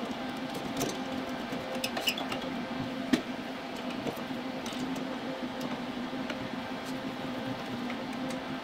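Scattered light metallic clicks and taps from pliers working a bent wire piece at an aluminium tail light, the sharpest about three seconds in, over a steady low hum.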